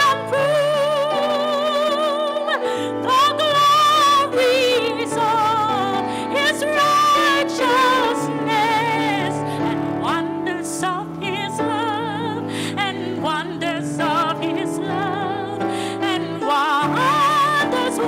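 A woman singing solo through a microphone, her voice held on long notes with wide vibrato, over sustained keyboard chords.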